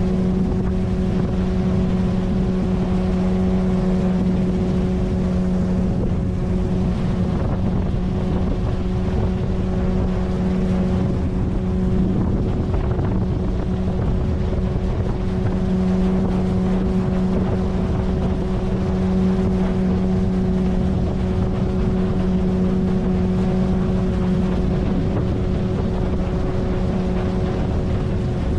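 A 9.8 hp outboard motor running at a steady, unchanging speed, driving a PVC inflatable boat along, with wind buffeting the microphone.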